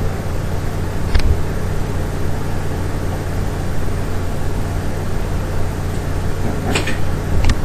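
Tape reels being lifted off a Westinghouse Portatape reel-to-reel recorder: three sharp plastic clicks, about a second in and twice near the end. A steady low hum runs underneath.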